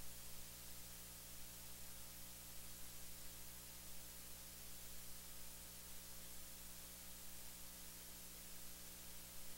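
Faint steady hiss with a low electrical hum underneath: the recording's noise floor, with no other sound.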